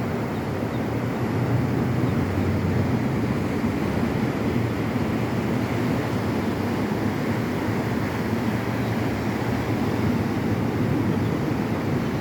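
Ocean surf rushing steadily on the beach, with wind buffeting the microphone.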